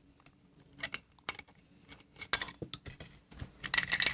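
Small metal carburetor parts, a Linkert float bowl and float assembly, clicking and clinking together as they are handled. The clinks come in scattered single ticks, then a quicker, louder run near the end.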